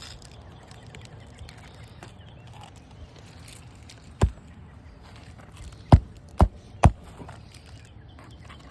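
Nails being driven into an asphalt roof shingle: four sharp strikes, one about four seconds in, then three in quick succession about two seconds later.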